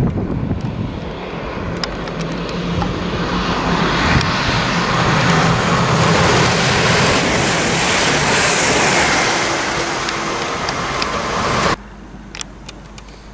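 London Midland Class 350 electric multiple unit running past along the platform: a loud rush of wheel, rail and air noise that builds and holds, then cuts off suddenly near the end.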